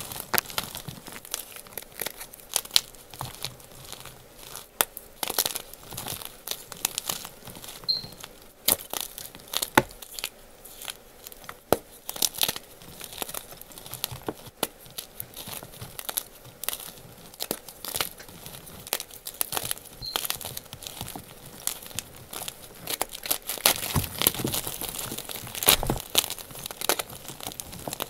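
Blocks of crunchy gym chalk being broken apart and crushed by hand in loose chalk powder: irregular crunches and crumbling crackles, busiest near the end.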